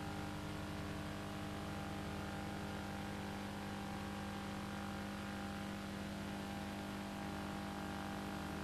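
Steady electrical hum with several fixed tones, over even hiss.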